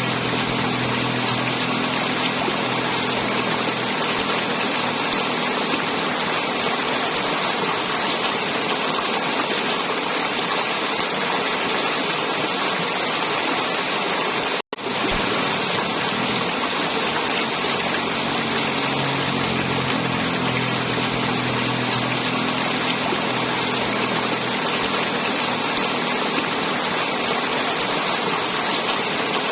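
River water flowing and gurgling in a steady rush, cutting out for an instant about halfway through.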